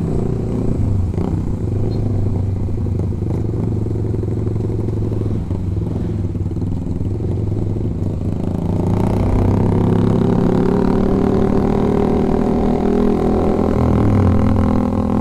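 Honda CB150R single-cylinder engine with an aftermarket racing exhaust, running at low cruising speed, recorded on board the bike. About nine seconds in, the revs climb as the bike picks up speed.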